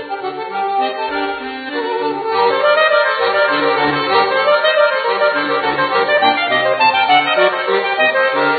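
Accordion playing a chamber piece: sustained chords over changing bass notes.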